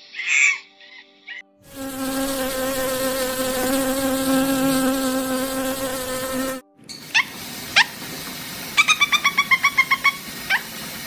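A short monkey call, then a bee buzzing steadily for about five seconds. After a brief gap a rosy-faced lovebird chirps sharply: two single chirps, a quick run of about ten, then one more.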